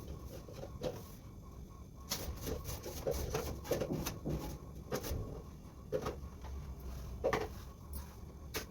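Intermittent knocks and clatter, as of household objects being handled and set down, over a low steady background rumble.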